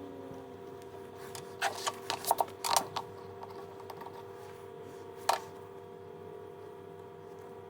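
Small hand tool scraping and clicking against a smartphone frame as old screen adhesive and broken glass are picked off the bezel: a quick run of sharp clicks and scrapes between about one and a half and three seconds in, and one more about five seconds in, over a steady low hum.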